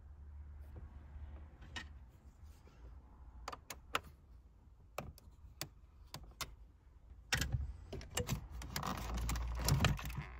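Screwdriver undoing a screw in a car dashboard, giving scattered small clicks, then the plastic dashboard air vent of a MINI F56 being levered out of its hole. This makes a louder, busier run of plastic clicks and knocks from about seven seconds in.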